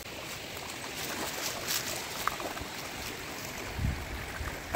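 Shallow rocky stream flowing, a steady rush of water, with a low rumble coming in near the end.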